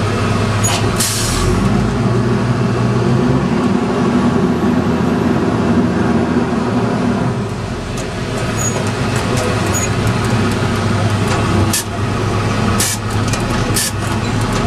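Freightliner Condor garbage truck's diesel engine running, heard from inside the cab, with a short air-brake hiss about a second in. The engine note rises and holds for several seconds, then drops back. A few sharp clicks and knocks come near the end.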